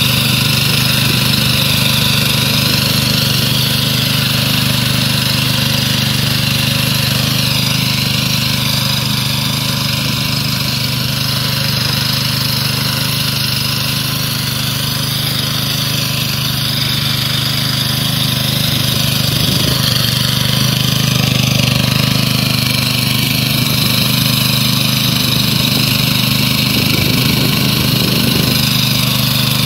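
Small engine of a homemade walk-behind tractor running steadily under load as it pulls a plough through soil.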